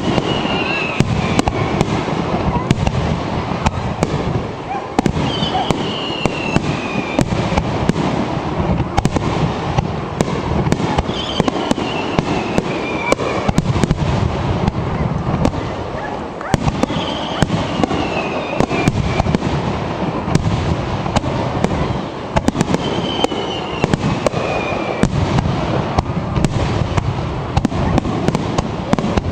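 Aerial fireworks display: continuous crackling and popping shell bursts, with a falling whistle about every five or six seconds.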